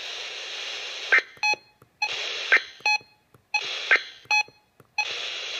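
Emergency Alert System end-of-message signal on NOAA Weather Radio: three short buzzy digital data bursts about a second and a half apart, marking the end of the warning. Radio static hiss fills the first second and drops out into silent gaps between the bursts.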